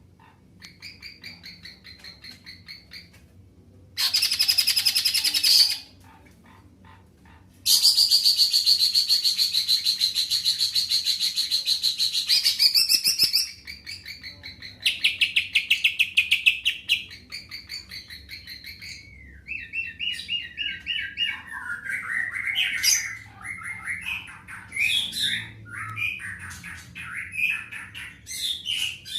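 Cucak ijo (green leafbird) singing: long, fast rattling trills, the longest lasting about five seconds, broken by short pauses, then a run of varied, quicker chirping phrases in the last third.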